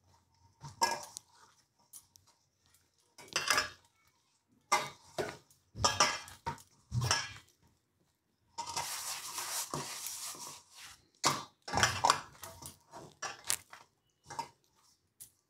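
Hands kneading and gathering soft wheat dough in a stainless steel bowl: irregular knocks and scrapes against the steel, with light metallic clinks. A longer stretch of scraping comes a little past halfway.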